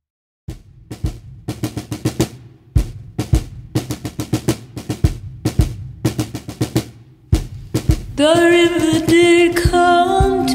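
Soundtrack music: after a moment of silence, drum and percussion hits in a beat, joined near the end by a held melody.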